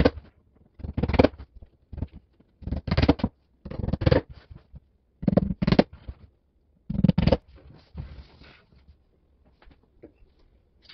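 Hammer tapping small nails through a thin back panel into a bookshelf frame: quick clusters of taps about once a second, stopping about eight seconds in.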